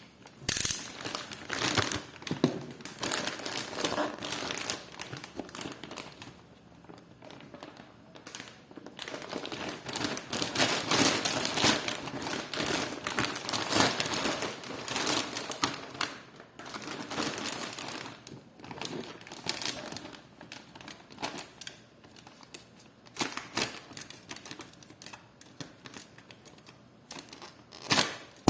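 Plastic packaging crinkling and rustling in irregular bursts, with scattered clicks and knocks, as a plastic motorcycle headlight cowling is unwrapped and handled.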